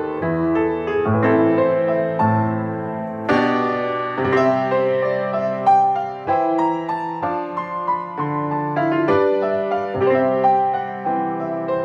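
Piano music: chords and melody notes struck one after another, each starting sharply and fading as it rings.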